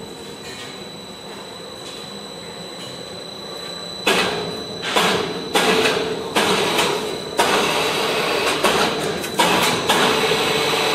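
HBY-500 ring debarker machinery running with a steady hum and a thin high whine. From about four seconds in, loud clanking knocks repeat, a bit under two a second, over the running noise.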